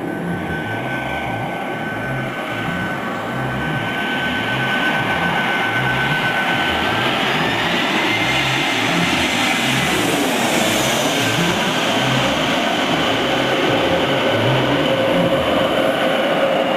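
Twin-engine jet airliner on final approach passing low overhead: a steady jet engine rush with a high whine that rises in pitch as it comes over and drops once it has passed. A regular low pulsing runs underneath throughout.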